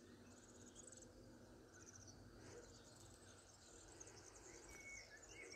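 Near silence with faint cricket chirping: short, high-pitched pulsed trills coming every second or so.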